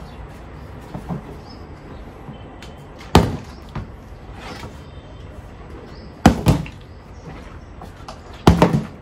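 Partly filled plastic soft-drink bottle being flipped and landing on a table. There is one sharp knock about three seconds in, a double knock just past six seconds, and a quick cluster of knocks near the end as it lands and tips over.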